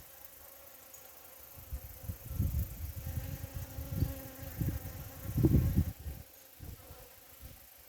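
Bee buzzing close to the microphone, a steady hum while it works the flowers. Irregular low rumbling comes and goes beneath it and is loudest about five and a half seconds in.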